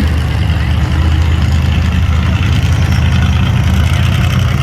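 A vehicle engine running steadily at idle, a low even engine note with no revving.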